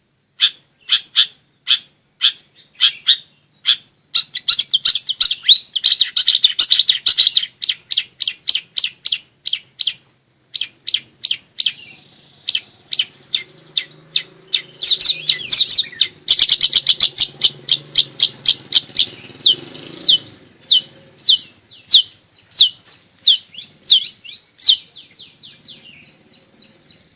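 Long-tailed shrike singing a loud, fast string of sharp high chips, several a second, breaking twice into quicker rattling runs.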